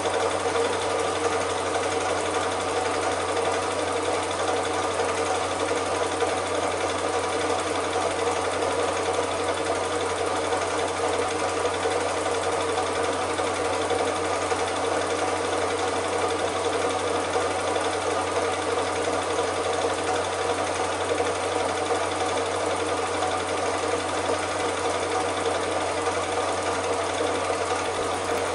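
Cine film projector running: a steady, unchanging mechanical whirr and clatter of the film transport mechanism.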